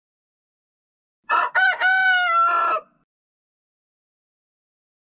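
A rooster crowing once, about a second in: a few short clipped notes run into one long held note that dips slightly at the end.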